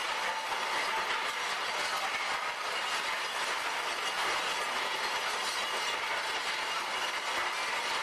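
Iron castings' gates, runners and sprue tumbling inside a Didion rotary sprue crusher's turning drum: a steady, dense metallic clatter as the pieces knock against each other and the drum. The tumbling is what crushes the core butts and cleans the sand off the iron.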